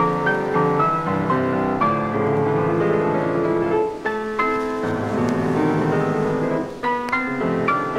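Background music led by piano, with notes struck in a steady flowing run.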